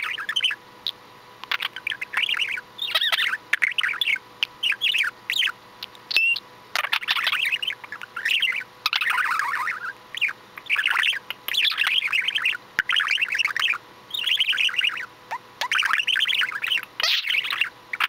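Budgerigar chattering: quick runs of chirps with brief pauses between them.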